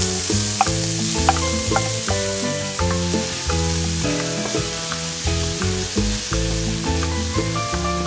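Diced onion sizzling in hot oil in a stainless steel frying pan as it is tipped in and stirred with a wooden spatula. Background music with shifting notes plays underneath.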